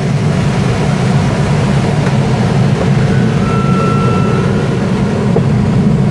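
Steady rushing of air around a glider's cockpit in aerobatic flight, with no engine. A faint short high tone sounds about halfway through.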